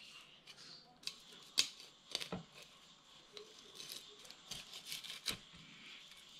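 Fillet knife cutting into a bluegill on a wooden cutting board: faint scraping with irregular sharp clicks and taps, the loudest a little over a second in and again about two seconds in.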